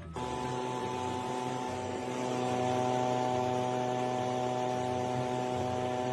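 A small electric motor, switched on abruptly, runs at a steady pitch with a constant hum.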